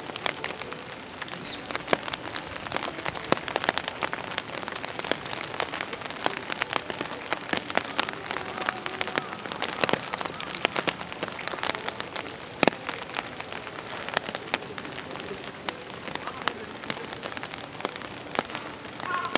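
Steady rain falling on hard surfaces, a constant hiss dotted with many sharp, irregular drips and splats.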